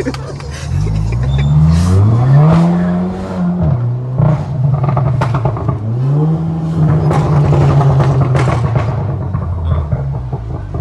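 Volkswagen Golf R's turbocharged four-cylinder engine revving hard twice: the revs climb over a couple of seconds and drop, then climb again and are held for a few seconds before falling, with sharp cracks in between.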